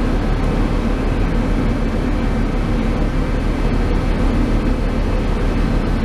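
Steady, loud machinery drone with a low engine-like hum and no sudden changes.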